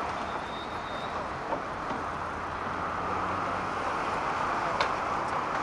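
Steady hum of road traffic from a busy city road, with a single short click near the end.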